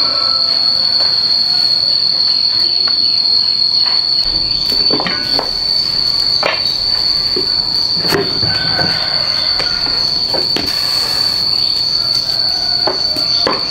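A steady, high-pitched insect drone that does not let up, with scattered short knocks and clatters of things being handled.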